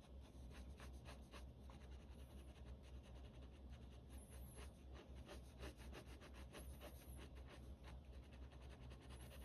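Pen scratching on sketchbook paper in rapid, short hatching strokes, faint, over a steady low hum.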